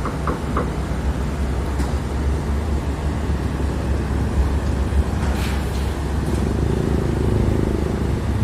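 Heavy diesel engine running steadily with a low, even hum, with a few light clicks near the start and a brief hiss about five seconds in.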